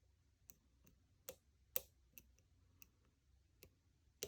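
Faint, irregular small metallic clicks of a lock pick working the pins in the six-pin core of a Schlage 851226 round-body padlock, about eight clicks at uneven intervals.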